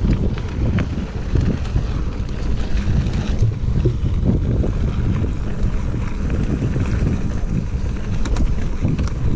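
Wind rushing over the camera microphone as a mountain bike rolls fast down a dirt singletrack, a steady low rumble with the tyres and bike rattling over the ground, and a few sharper knocks near the end.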